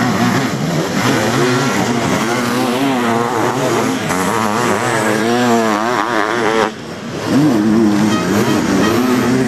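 Racing sidecar motocross outfits' engines revving hard on a dirt track, several at once, their pitch rising and falling with the throttle as they pass. The sound dips briefly about seven seconds in, then picks up again.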